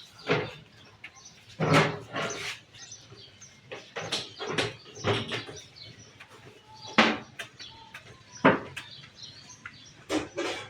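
Irregular knocks and clunks of washing machine parts being handled and fitted together as the tub is reassembled.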